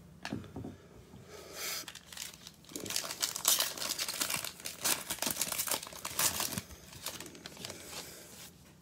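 Wrapper of a 2021 Panini Prizm baseball cello pack being torn open, crinkling in bursts for about four seconds starting a couple of seconds in.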